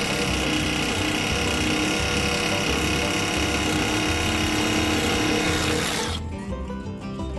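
Rotary hammer drill boring into a concrete block wall, running steadily, with music playing over it. About six seconds in the sound dulls briefly as the high end drops away.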